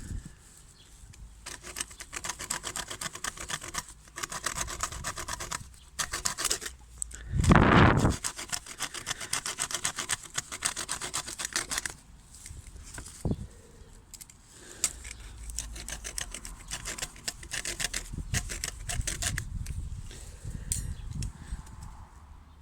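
A small multi-tool hacksaw blade, on a Gerber MP600 Pro Scout, cutting mild steel with rapid back-and-forth rasping strokes. There are two long bouts with a pause between them, and a brief loud bump about eight seconds in.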